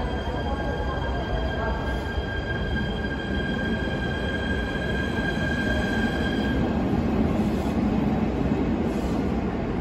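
E129 series electric multiple unit pulling away from a platform and gathering speed: a steady high whine that stops about two-thirds of the way through, under a low rumble of the passing cars that grows louder toward the end.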